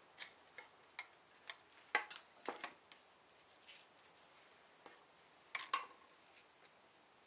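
Faint small clicks and taps of hand work with painter's tape, a steel ruler and a thin veneer patch against a wooden table apron: several in the first three seconds, then two sharper ticks close together late on.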